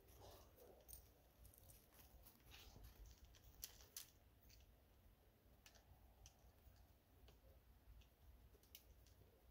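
Near silence, with a few faint, irregular clicks of hens' beaks pecking at feed in a dish.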